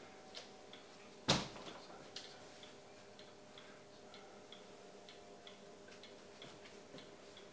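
A sharp click about a second in, then faint, regular light ticking, about three ticks a second, over a low steady hum.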